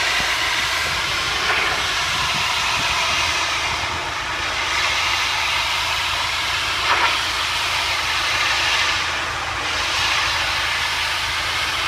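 Pressure washer spraying a steady high-pressure jet of water, a loud continuous hiss with a low rumble underneath that swells and eases slightly.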